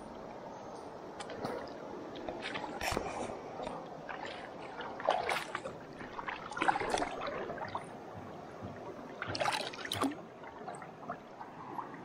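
River water sloshing and splashing in irregular bursts, several times, over the steady rush of the stream.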